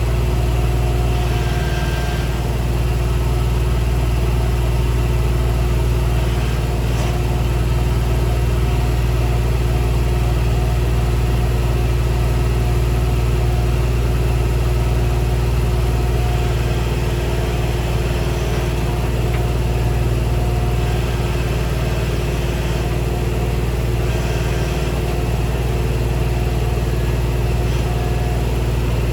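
New Holland skid steer's diesel engine running steadily.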